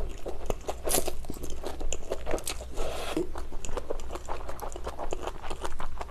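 Close-miked chewing of a mouthful of pad thai stir-fried rice noodles: a steady run of small wet crunches and smacks.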